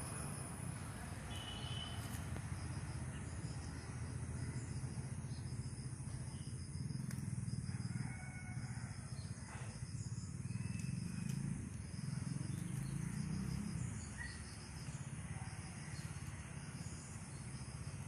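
Natural outdoor ambience: a steady low rumble under faint insect trills pulsing quickly and evenly, with a few short bird chirps scattered through it.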